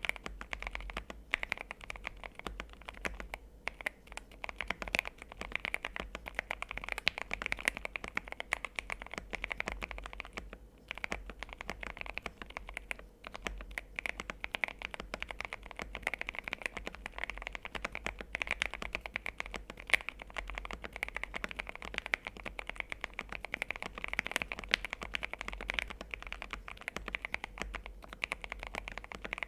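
Mechanical keyboard fitted with linear switches being typed on continuously: a rapid, uneven run of keystroke clacks.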